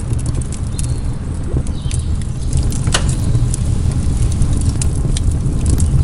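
Wood campfire burning, crackling with scattered sharp pops over a steady low rumble.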